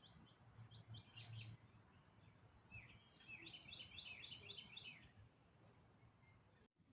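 A small bird chirping faintly: a few scattered chirps, then a quick run of about ten high chirps between about three and five seconds in.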